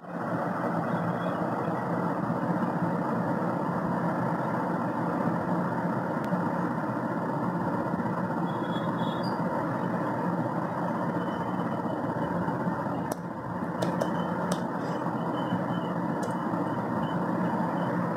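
A steady, even hum-like noise, with a handful of sharp laptop key clicks about two-thirds of the way in as a short command is typed.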